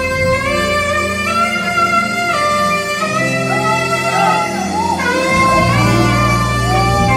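Live gospel music: saxophone playing long held notes over sustained backing chords and bass, the bass growing stronger about two-thirds of the way through.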